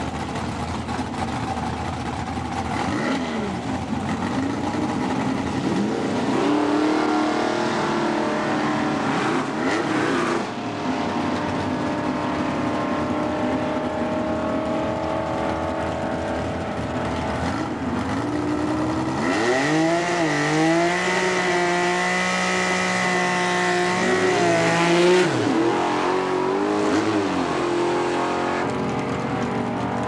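Ford NASCAR V6 in a Pro Stock–style drag car, revving up twice and holding high revs for several seconds each time, dropping back to a lower, uneven run in between and afterwards. The held revs come with the rear tire spinning in a burnout.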